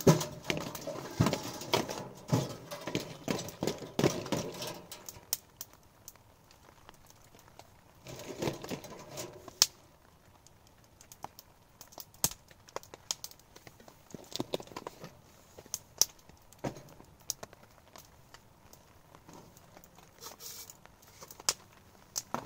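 Rustling and handling noises, busiest for the first four seconds or so and again in short bursts about eight seconds in and near the end, with scattered sharp ticks throughout.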